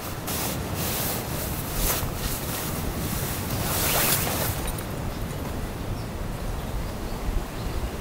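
Nylon fabric rustling and swishing as a packed fabric panel is hauled out of its nylon carry bag, in several brisk swishes over the first half, the loudest about four seconds in. Under and after it runs a steady low rush of wind and surf.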